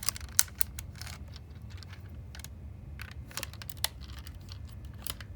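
Irregular light clicks and taps of Lego plastic pieces as a Lego puzzle box is handled and probed, trying to work a lodged piece loose.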